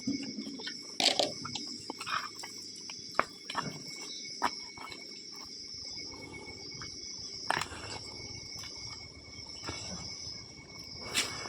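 A dog chewing a roasted chicken, with scattered wet crunches and clicks of bone and teeth. A steady high insect chirring runs in the background.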